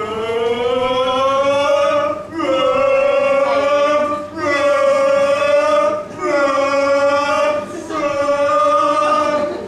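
Voices singing five long held notes together, each about two seconds with a short break between, the first sliding upward in pitch.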